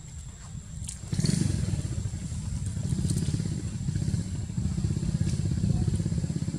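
A small engine, like a motorcycle's, running close by: it comes in suddenly about a second in and holds steady as a low pulsing rumble.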